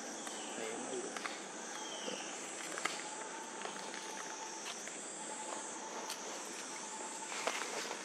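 A steady, high insect drone that slowly wavers in pitch, with scattered small clicks and rustles in dry leaf litter.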